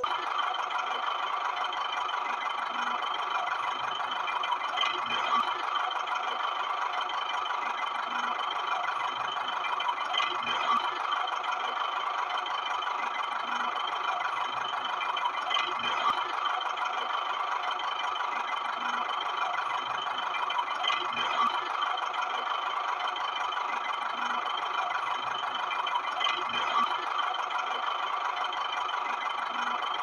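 Steady mechanical running and rattling, like a small motor, with a louder swell that repeats about every five seconds as a loop.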